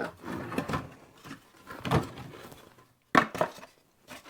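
Pieces of wood knocking and clattering as they are handled, in a string of separate knocks with the sharpest about three seconds in.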